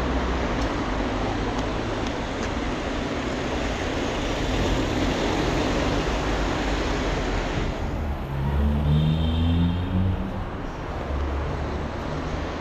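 City street traffic: a steady rush of passing vehicles, then about eight seconds in a vehicle's engine pulls away, its pitch rising.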